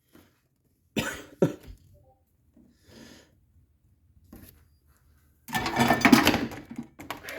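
A person coughing: a short cough about a second in, then a longer, rougher bout near the end.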